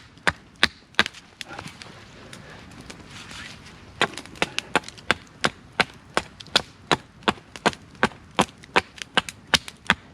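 Quick, evenly spaced chopping knocks on wood, about three a second. They pause for about three seconds near the start and then run on steadily.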